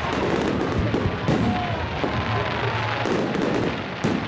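Fireworks display: dense, continuous crackling and popping of bursting fireworks, with music playing underneath.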